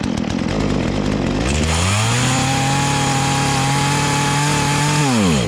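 Two-stroke chainsaw engine running at low speed, then revved to full throttle about a second and a half in; it holds a high steady pitch, then the revs sag and it dies near the end. Stalling at full throttle like this is the sign of the engine being starved on the high-speed circuit, needing the carburettor's high-speed screw turned richer.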